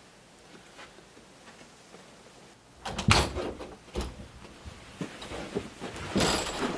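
Faint ticking, then about three seconds in a sudden run of knocks and clattering, with a louder rushing clatter near the end.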